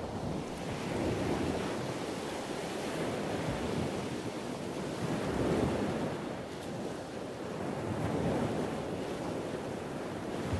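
Rushing sound of sea and wind, an even noise of waves that swells and eases every few seconds.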